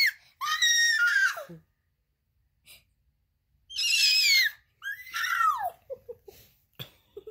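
An eight-month-old baby squealing: a few short, very high-pitched squeals, most of them sliding down in pitch at the end.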